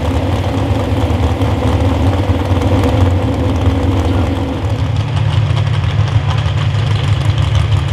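Super stock 4x4 pulling truck's engine idling loudly and steadily at the end of its pull. About four and a half seconds in, the sound switches abruptly to a second idling engine with a deeper, steadier tone.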